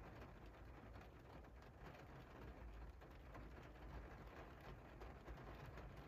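Rain falling faintly on a window pane: a soft, steady hiss scattered with small drop ticks, over a low rumble.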